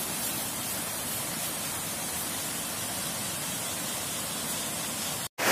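Steady rushing of a waterfall and stream rapids, an even hiss with nothing else standing out.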